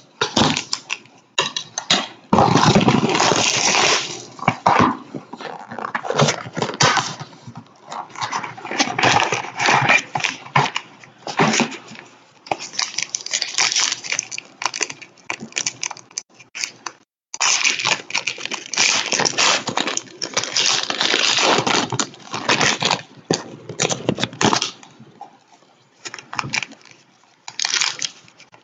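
Rustling, crinkling and tearing of the plastic wrapping and packaging of a box of trading cards and its packs as they are opened by hand, in irregular spells with a short pause about 17 seconds in.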